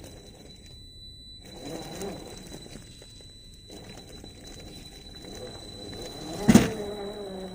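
Brushed 550 electric motor and gear drivetrain of an MST CFX-W 1/10-scale RC rock crawler whining at low speed, with a sharp knock about six and a half seconds in, after which the motor whine falls in pitch.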